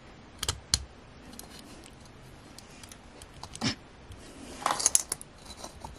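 A small key clicking and scraping against the lock of a piggy bank as it is jiggled and fails to go in: the key does not fit the lock. There are a couple of sharp clicks in the first second, a dull knock about two-thirds of the way in, and a short scrape near the end.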